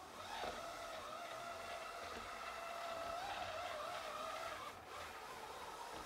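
Ecovacs Deebot Ozmo 950 robot vacuum whining as it drives to its charging dock, a wavering mid-pitched whine that starts with a short downward glide and stops near the five-second mark.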